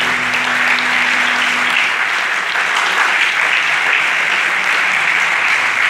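Concert audience applauding, a dense, even clapping that holds steady throughout. A low hum from the stage fades out in the first two seconds.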